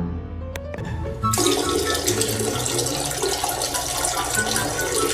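Water running steadily from a tap, starting about a second in, under background music.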